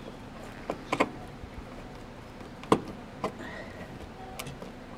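Hand screwdriver driving a long wood screw into a wooden mounting block, with a few separate sharp clicks and a brief squeak about three and a half seconds in.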